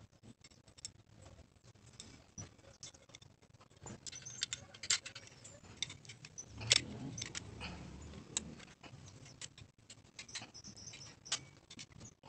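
Small metal parts of an air rifle clicking and clinking as they are picked up, handled and fitted together during reassembly: irregular light taps and knocks, the loudest about halfway through.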